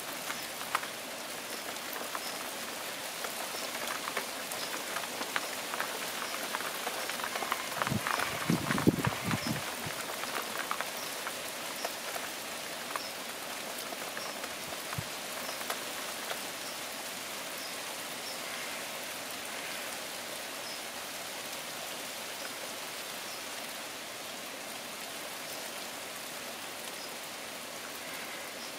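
Steady rain falling on garden foliage, with scattered drips pattering throughout. About eight seconds in there is a louder, deeper burst of noise lasting about two seconds.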